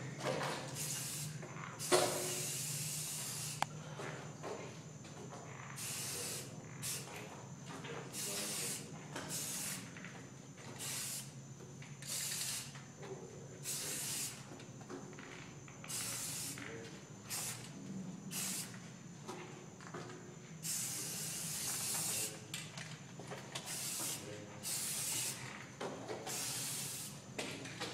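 Aerosol spray-paint can hissing in repeated bursts as graffiti is painted on a wall: many short sprays of under a second and a few longer ones of about two seconds, with gaps between, over a low steady hum.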